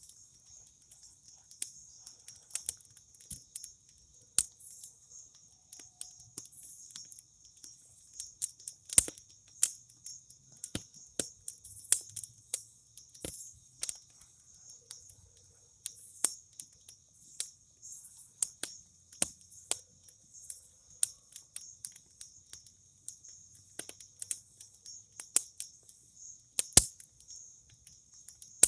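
Wood campfire crackling with irregular sharp pops, a few louder snaps among them. Under it runs a steady high chirring of crickets.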